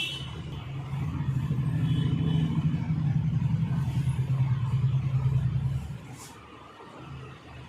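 A small electric motor runs with a steady low buzz and fast pulsing, louder from about a second in, then stops abruptly a little before the end.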